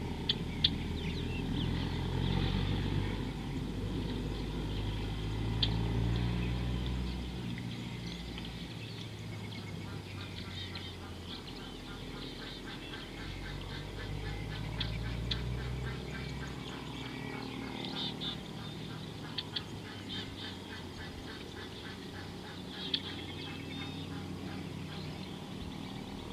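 Outdoor savanna ambience: birds calling and chirping, with a fast pulsing trill in the middle and a low rumble during the first half, and a few sharp clicks.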